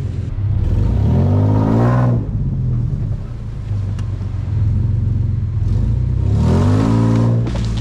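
Titan-swapped Nissan Xterra's V8 engine running under a steady low rumble, revving up twice, once about half a second in and again near the end.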